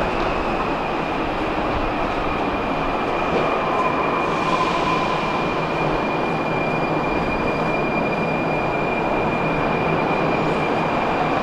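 Metro train running on the track, a steady rumble with a constant high-pitched whine, and a second fainter tone briefly about four seconds in.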